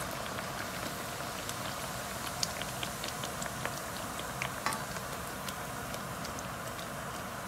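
Fried bake dough deep-frying in hot oil in a pan: a steady sizzling hiss with scattered sharp crackling pops, two of them louder about two and a half and four and a half seconds in.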